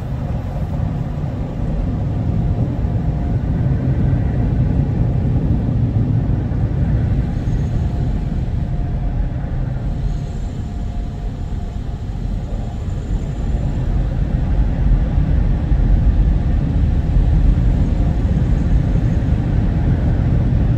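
OPW PDQ ProTouch Tandem touchless car wash machinery running, heard from inside the car's cabin as a low, steady rumble that grows somewhat louder about two-thirds of the way through.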